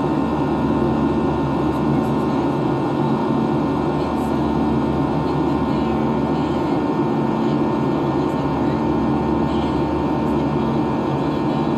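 Steady cabin noise of a Boeing 737-700 in flight: the CFM56 engines' even hum with several held tones over a constant rush of airflow.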